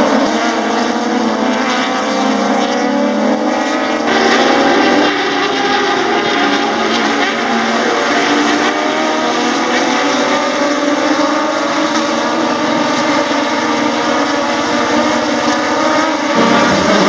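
A pack of touring race cars running through the corners together, many engines overlapping at once, their pitches rising and falling as the drivers lift off and accelerate.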